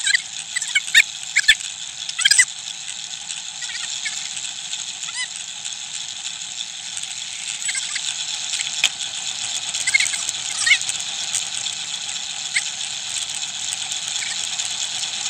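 Steady hiss of a bicycle on the move at night, likely tyre and air noise on a damp road, with scattered short high squeaks throughout and a few sharp clicks in the first couple of seconds.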